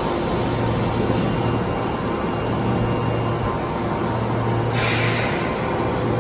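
Osaka Metro 22 series subway train standing at the platform: a steady low hum, with a short burst of air hiss at the start and another about five seconds in.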